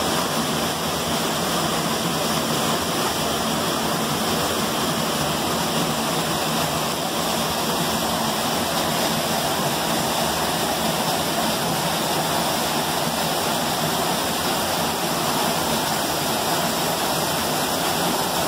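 Small canyon waterfall pouring between boulders into a rock pool: a steady rush of falling water, running strong.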